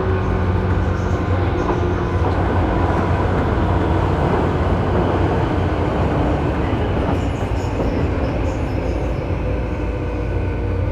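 Tobu 9000-series electric train running, heard from the car floor above its armature chopper controller: a steady rumble with several steady whining tones from the chopper, which gives an abnormal, high-pitched whine on this car.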